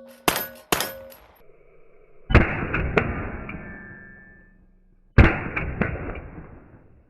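Two metallic clangs with a short ring near the start, then two pistol shots from a compensated CZ P10 C about three seconds apart, each trailing off over a couple of seconds.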